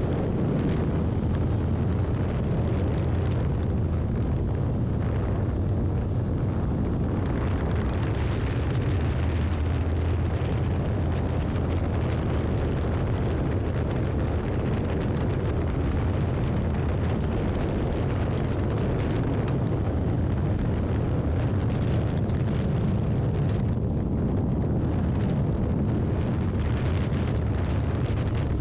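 Steady wind roar buffeting the camera microphone of a Honda X-ADV 750 riding at highway speed, over a deep, even rumble of engine and road.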